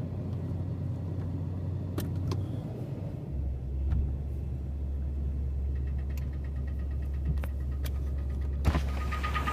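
2004 Toyota Tundra engine idling after a cold start, its steady low hum dropping lower about three seconds in, with sharp clicks at irregular intervals over it: the clicking noise the owner is documenting.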